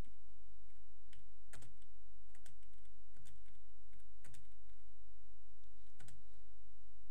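Computer keyboard keys pressed one at a time, a sparse series of single clicks roughly a second apart, over a steady low hum.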